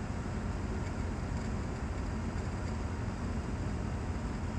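Steady drone of a Bristell light aircraft's turbocharged Rotax 914 flat-four engine and propeller, heard from inside the cockpit, with the throttle pulled back to idle in a descent while the propeller still turns at about 2,600 RPM.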